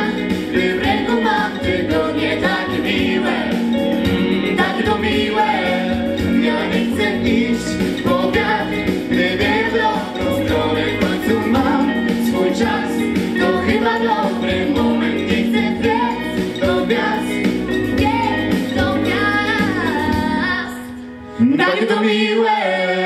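Four mixed voices, two male and two female, singing a song into microphones over a backing track. About twenty seconds in the accompaniment drops away and a last sung note rises and holds to close the song.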